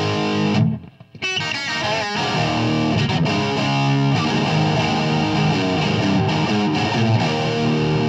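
Electric guitar playing a rock riff: held chords that cut out briefly about a second in, then a quick run of notes before the chords return.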